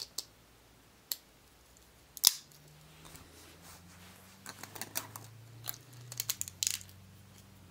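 Hard plastic Beyblade parts being handled and fitted together: scattered sharp clicks and snaps, one louder snap a little over two seconds in, then a quick run of clicks in the second half.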